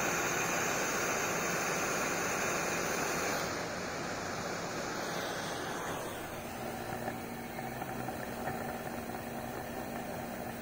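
Steady rushing whir of a Pierburg CWA 400 electric coolant pump spinning fast, driven up as its controller reads about 50 °C from the heated intake air temperature sensor, together with the heat gun blowing on that sensor. A high whine drops out about three and a half seconds in and the sound grows a little quieter, leaving a lower steady hum.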